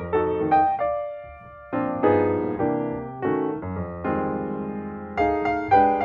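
Background piano music: a gentle melody of single struck notes and chords that start sharply and fade away, with a short lull about a second in.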